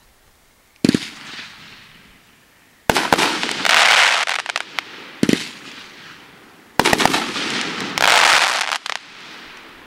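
Consumer firework cake firing its shots: sharp reports, with two clusters that each break into a dense crackling lasting a second or two, about three and about eight seconds in.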